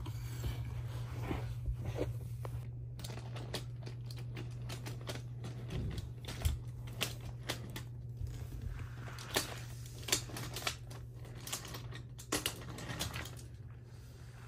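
Irregular light clicks and clacks of wooden toy train track pieces being handled and fitted, and of a toy train and its cars knocking along the wooden track, over a steady low hum.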